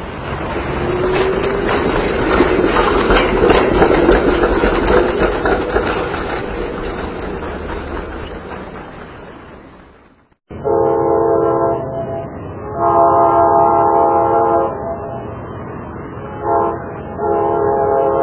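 A train passes by, its wheel clatter swelling to a peak and then fading away. After a cut, a train horn sounds a chord of several notes in separate blasts: two long ones, a short one, then another long one.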